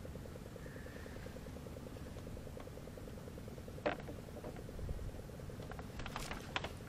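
Faint steady mechanical hum with an even rapid pulse, with a light knock about four seconds in and a few soft clicks near the end.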